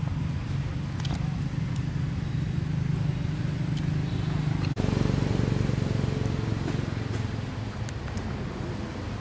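Steady low hum of a running engine. It drops out for an instant about halfway through and comes back slightly louder, with a few faint clicks over it.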